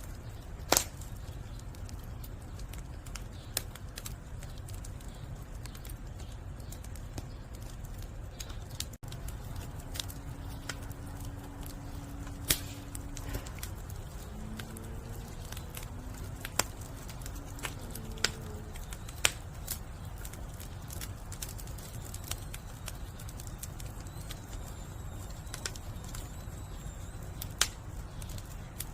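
Firewood burning under a cauldron: a steady low rumble of the fire with irregular sharp crackles and pops, a handful of them much louder than the rest.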